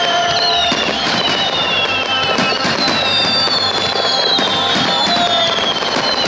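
A fireworks barrage: rapid bangs and crackling bursts, with whistles that fall in pitch one after another. Music plays underneath.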